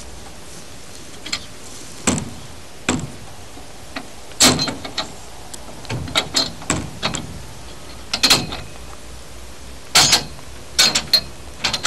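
Steel-framed portable horse stall panels clanking as a divider is set into its connectors: a dozen or so irregular metal knocks and clanks, some with a brief ring.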